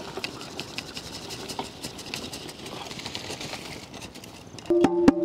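Rice grains pouring from a metal bowl into a large aluminium pot of boiling water, a steady hiss with a light patter of grains. Near the end, several sharp metallic knocks set off a loud ringing tone, like the bowl being knocked against the pot rim to empty it.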